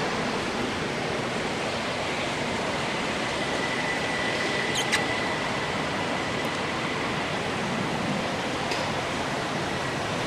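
Steady outdoor hiss, with a faint thin high tone held from about a third of the way in and a single sharp click about halfway through.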